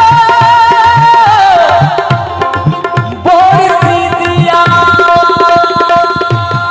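End of a Baul folk song: a held, wavering melody note slides downward about a second in, then new steady sustained notes come in about halfway, all over regular hand-drum strokes.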